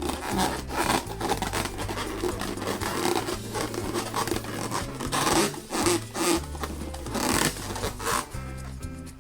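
Latex balloon being rubbed and squeezed by hand, giving a run of short, irregular squeaky rubbing strokes that are loudest past the middle. Background music with a steady bass line plays underneath.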